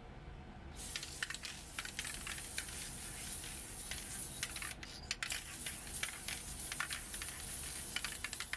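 Aerosol can of Dupli-Color tire paint spraying: a steady hiss that starts about a second in, with many small crackling clicks through it and a short break around the middle.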